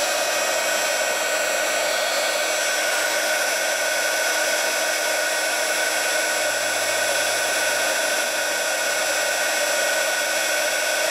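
Embossing heat gun running steadily, its fan blowing a constant rush of air with a steady whine, drying acrylic modeling paste on a paper tag.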